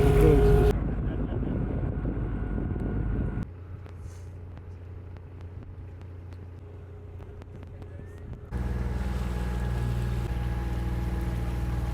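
Edited run of short shots: a loud rumbling stretch, then a quieter one with scattered clicks. About eight and a half seconds in, it cuts to a sailing yacht's inboard engine running at a steady drone while motoring in calm conditions.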